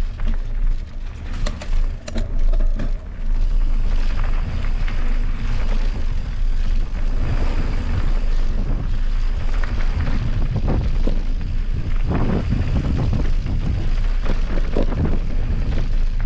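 Riding a mountain bike down a trail: wind buffets the microphone in a steady low rumble, with knocks and rattles from the bike over rough ground. The knocks are heavier in the second half.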